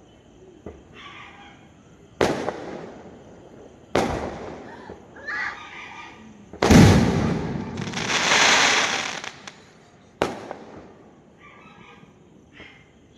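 Fireworks going off: four sharp bangs about two seconds apart. The loudest and deepest comes about halfway through and is followed by a long hiss lasting about two seconds.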